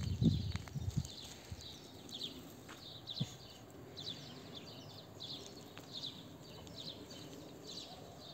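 A bird chirping over and over, short high notes about twice a second, against quiet outdoor background noise. A few low thuds come in the first second.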